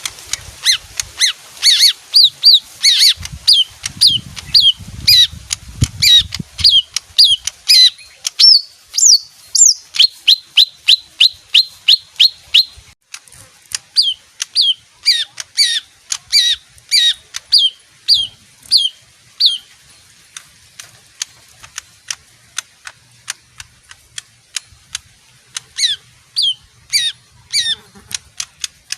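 A leafbird singing a fast run of sharp, repeated down-slurred whistled notes, several a second, which stops about two-thirds of the way through; after a stretch of faint ticks it gives a few more notes near the end.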